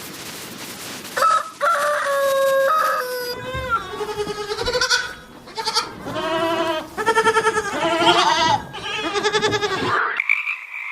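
A rooster crows once in a long held call that falls away at the end, followed by a series of wavering goat bleats. Frog croaking starts near the end.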